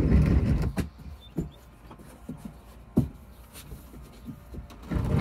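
Plastic kayak hull being handled and lifted up against a truck's ladder rack: low rumbling as it is hoisted, with a few short hollow knocks, the sharpest about three seconds in, and more rumbling near the end.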